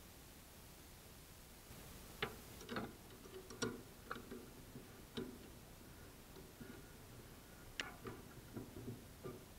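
Small metallic clicks and clinks of a hand tool working on a Land Rover's battery terminal, irregular and of varying loudness, starting about two seconds in after near silence.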